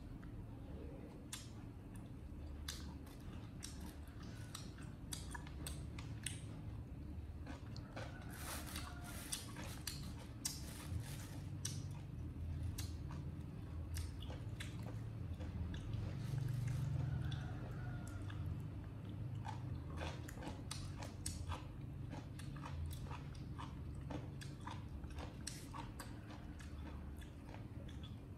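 Monkeys chewing and biting into food: a continuing run of sharp crunching clicks, over a low steady hum.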